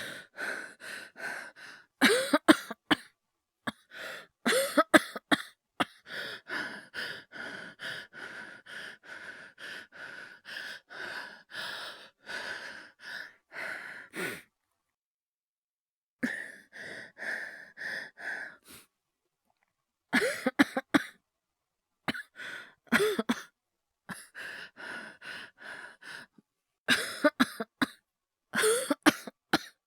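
A voice actor's acted coughing: several bouts of harsh coughs, with a long run of quick, short breaths and small coughs at about three a second between them, and short pauses between bouts.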